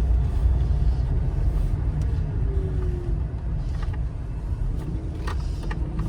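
Kia Picanto driving on a road test: steady low engine and road rumble, with a few light clicks about five seconds in.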